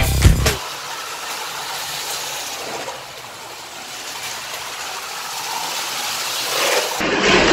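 Lego electric trains running on plastic track: a steady rolling rattle and motor whir that grows louder near the end.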